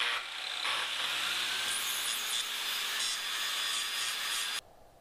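Angle grinder with an abrasive disc grinding the steel head of an old demolition chisel, a loud steady grinding hiss of disc on steel that stops abruptly near the end.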